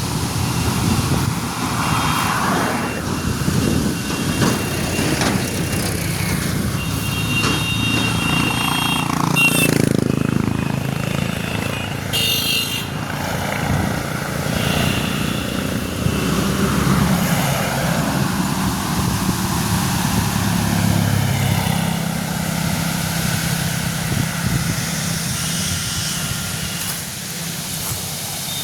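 A heavy engine, like a truck or construction machine, running steadily throughout, with a few brief high-pitched tones over it.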